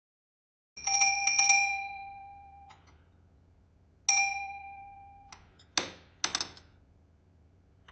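Café door bell ringing as the door opens: a quick cluster of jingling strikes about a second in that rings on and is cut short, then a second ring about four seconds in, also cut short. Two sharp clacks follow near the end.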